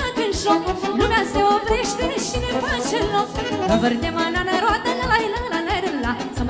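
Live Romanian folk dance music: an instrumental break between verses, a saxophone carrying a fast, ornamented melody over a steady beat from the band.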